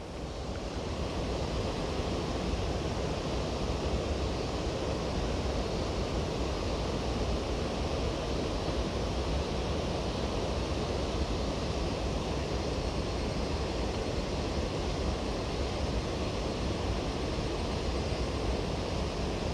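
Mountain stream water rushing over rocks, a steady, unbroken roar.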